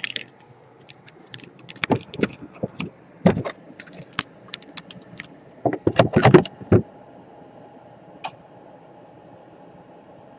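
Irregular clicks, taps and light clatter of small tools and parts being handled on a workbench, busiest about six seconds in, over a faint steady hum.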